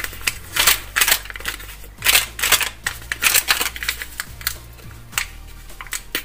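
Paper sachet of baking powder crinkling as it is handled and opened over a mixing bowl, a run of irregular crackles, with a faint steady low hum underneath.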